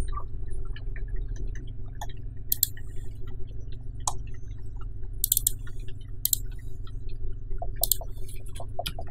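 Steady low electrical hum with scattered sharp clicks of a computer mouse and keyboard, a handful of them louder than the rest.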